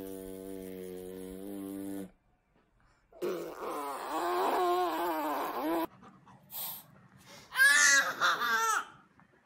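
A steady, low humming note that stops about two seconds in. After a pause comes a toddler's wavering babbling cry, then near the end a baby's high-pitched squealing laughter.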